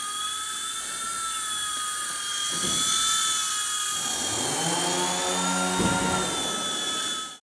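4-channel micro single-rotor RC helicopter's electric motor and rotor whining at a high pitch that wavers up and down with the throttle, over a rotor hiss. A lower hum joins for a couple of seconds in the middle, and the sound cuts off suddenly near the end.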